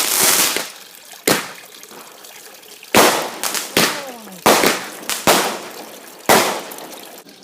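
Fireworks going off: a string of about seven sharp bangs and cracks, several trailing off in a hiss.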